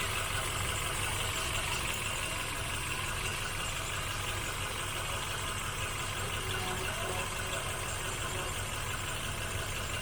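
Hyundai i10 petrol engine idling steadily at a normal, even speed, the hunting rough idle fixed.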